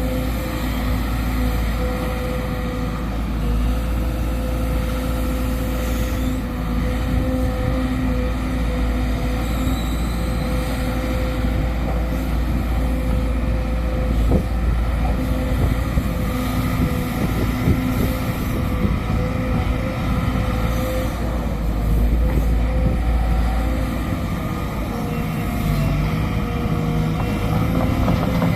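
Sumitomo SH210 hydraulic excavator's diesel engine running steadily under load while digging, with a held tone over a deep rumble and a single knock about halfway through.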